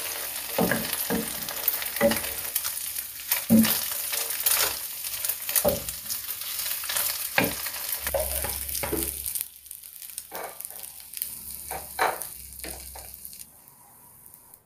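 Egg-coated slices of wajik sizzling in hot oil in a frying pan, with a wooden spatula knocking and scraping against the pan. About two-thirds of the way in the sizzling falls away, leaving a few scattered knocks and taps as the fried pieces are put on a plate.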